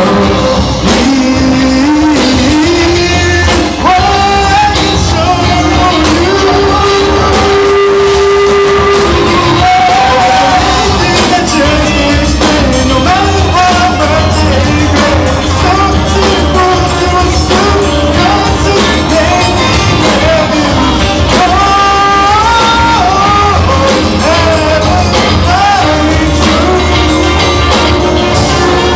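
Live band playing a song with singing: a large ensemble of piano, guitars, bass, drums, percussion and horns, with several singers, playing loud and steady.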